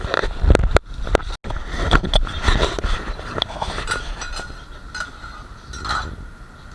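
Metal spatulas scraping and clacking on a hot iron griddle: a quick run of sharp knocks and scrapes, busiest in the first half, with the sound cutting out for an instant about a second and a half in.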